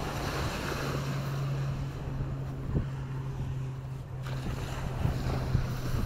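Seashore ambience: waves washing in and wind buffeting the microphone, over a steady low engine hum that drops slightly in pitch about half a second in.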